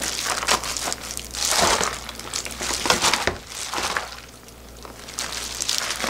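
Wet, seasoned napa cabbage leaves being handled and pressed down into a plastic container by a hand in a disposable plastic glove: irregular crinkling and crunching rustles, quieter about four seconds in.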